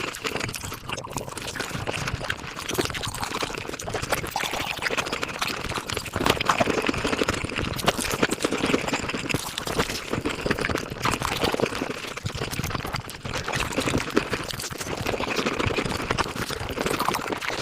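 Eating sounds sped up five times: a dense, unbroken stream of quick chewing clicks and crackles.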